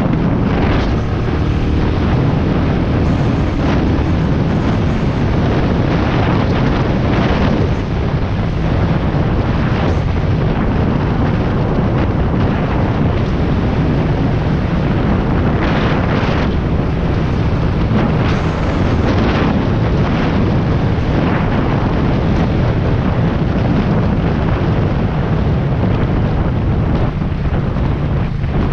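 Steady wind rush buffeting the microphone of a GoPro while riding, over the low running of a Royal Enfield Meteor 350's single-cylinder engine and road noise.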